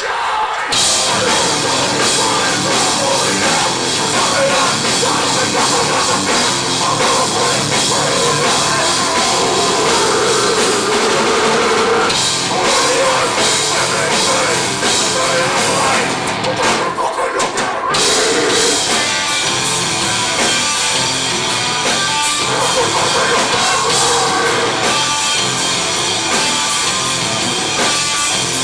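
Heavy rock band playing live and loud, with a pounding drum kit and cymbals under the full band.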